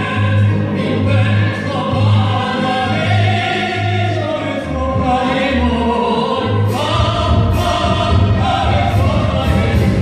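Male and female popera duo singing in an operatic style over an amplified accompaniment with a pulsing bass. About seven seconds in the accompaniment fills out, with several cymbal strikes.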